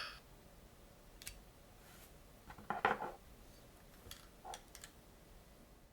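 Light clicks and clatter of small hard objects being handled, a few scattered knocks with a brief cluster about three seconds in.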